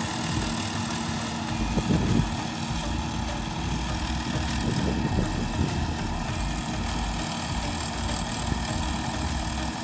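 Rice combine harvester running steadily as it cuts and threshes paddy, a constant engine drone with a brief louder rumble about two seconds in.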